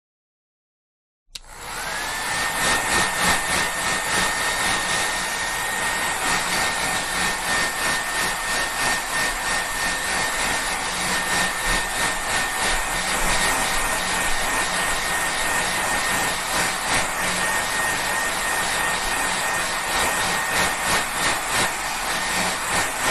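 Hair dryer switched on after a short silence: the motor whines up in pitch within about half a second, then runs steadily, a high motor whine over loud rushing air.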